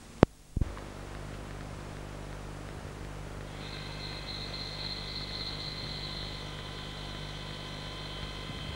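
Two sharp clicks just after the start, then a steady low hum with a faint hiss; a thin high whine joins about three and a half seconds in.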